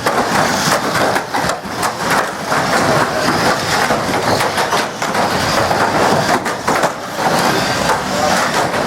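Banger racing cars running on the track, with engines going and repeated crunching knocks of metal on metal as they collide.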